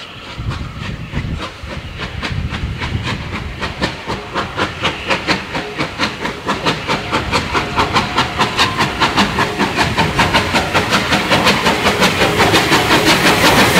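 Bulleid light pacific No. 34070 'Manston', a three-cylinder steam locomotive, pulling away with its train. The exhaust beats from the chimney start slow, then quicken and grow louder as it gathers speed and comes closer, reaching about five or six beats a second near the end.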